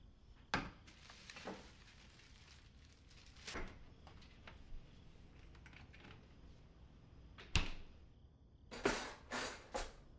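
Kitchen handling sounds: scattered knocks and clicks of jars and containers being picked up and set down, and a cupboard and refrigerator door being worked. The sharpest knock comes about three-quarters of the way through, followed by a quick run of clatters near the end.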